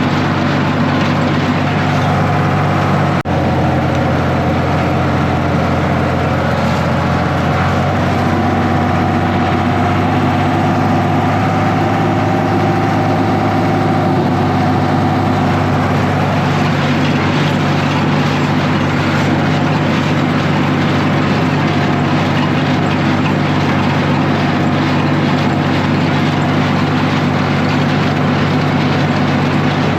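Tractor engine running steadily at a constant speed while pulling a New Holland 275 hay baler.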